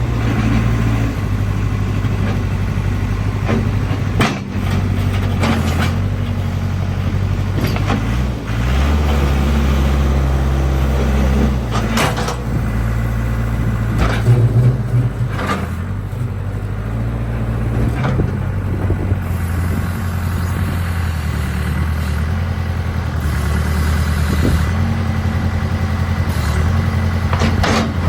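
Case 580 Super K backhoe's Cummins 4-390 four-cylinder diesel running while the backhoe is worked, its engine speed stepping up and down as the hydraulics take load. Now and then a sharp knock or clank cuts through.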